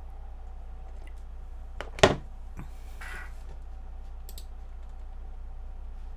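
A glass milk pitcher set down on a wooden tray with one sharp knock about two seconds in, among a few faint mouth clicks from drinking and chewing, over a steady low hum.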